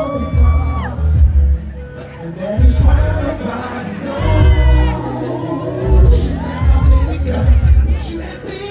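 Loud music with a heavy bass, played through a venue's sound system, with a crowd singing along and whooping.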